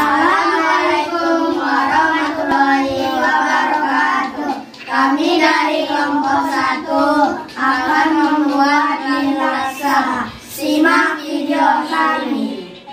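A group of boys singing together in unison, in four phrases with short breaks between them.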